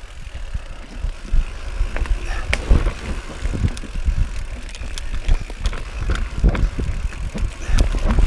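Mountain bike riding fast down dry, loose forest singletrack: tyres rolling over dirt and roots, with the bike rattling in irregular knocks over a low rumble.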